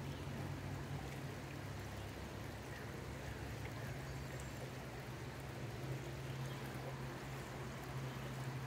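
Shallow river rushing steadily over stones, with a steady low hum underneath.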